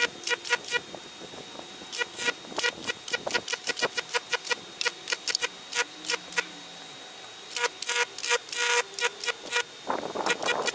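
Microwave oven transformer arcs, current-limited by a tap-water ballast resistor, striking again and again between a steel knife blade and an aluminium pie tin: rapid buzzing crackles in clusters, with a short lull a little past halfway. Played back sped up four times, which raises the pitch of the buzz.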